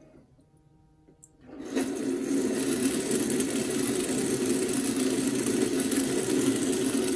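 Bio Bidet A7 Special Edition smart toilet seat starting its wash about a second and a half in: a steady whirring hum with water spraying into the bowl. It is set to the oscillating cleanse, with the nozzle moving forward and backward as it squirts.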